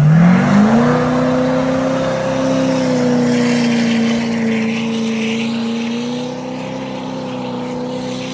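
Ford Super Duty pickup's engine revved hard and held at high revs through a burnout, rear tyres spinning and smoking. The pitch climbs over the first second, then stays nearly level, sagging slightly near the end.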